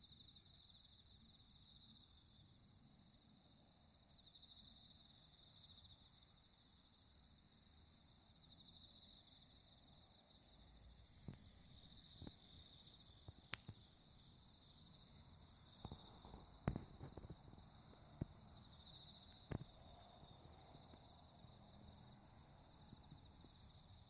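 Faint chorus of night-singing insects: a steady high trill with a second, pulsing trill a little lower that swells for about a second every few seconds. A few sharp clicks or knocks come in the second half.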